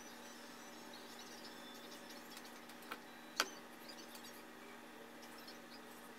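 Quiet room tone with a steady low hum and faint high chirps, broken about three seconds in by two sharp clicks half a second apart, the second much louder.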